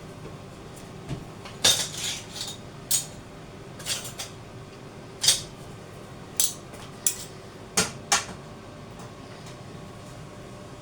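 Cutlery and dishes clinking and knocking, about a dozen irregular sharp clinks while food is served onto a plate, over a steady low hum.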